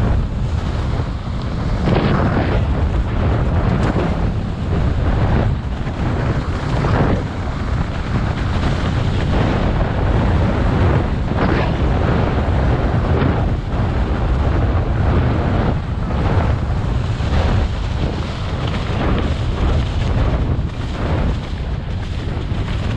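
Heavy wind rumble buffeting an action-camera microphone on a mountain bike descending at speed, with tyres running over leaf-covered dirt and frequent short knocks and rattles as the bike hits bumps.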